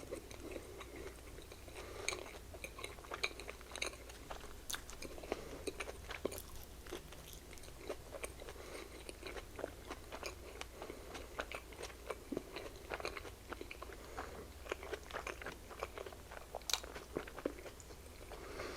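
Close-miked chewing of slider burgers: soft, wet mouth sounds with many small irregular clicks and crackles.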